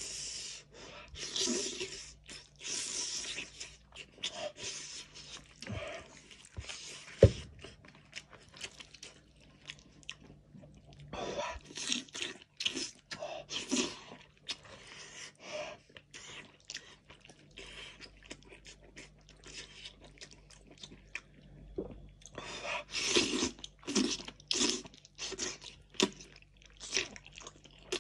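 Close-up eating sounds of a man gnawing meat off a roast sheep's head with his fingers: wet chewing, lip smacking and sucking in irregular bursts, with quieter pauses between. A single sharp click about seven seconds in.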